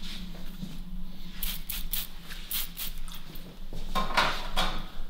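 Light clicks and taps of hairdressing tools being handled, with a short hiss about four seconds in, over a low steady hum.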